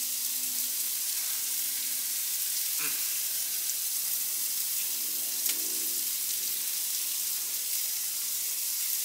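Chicken wings and fajita meat sizzling on the grates of a wood-and-charcoal-fired Santa Maria-style grill: a steady hiss.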